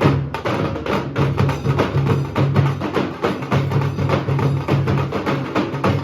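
Nasik dhol-tasha ensemble drumming: deep barrel dhol beats pulsing about twice a second under a dense, fast rattle of sharp tasha strokes, loud and without a break.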